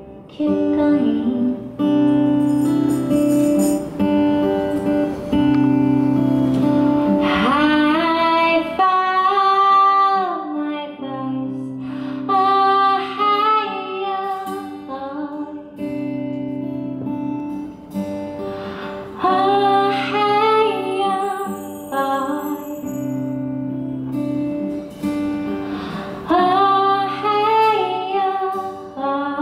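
A small live band playing a song: a woman sings over acoustic guitar and bass guitar. The voice comes in about seven seconds in, after an instrumental passage of held notes.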